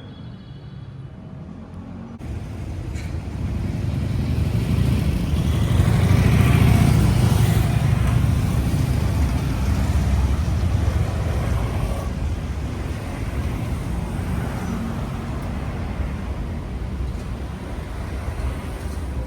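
A train running: a rushing rumble that sets in sharply about two seconds in, swells to its loudest a few seconds later, then eases a little and holds steady.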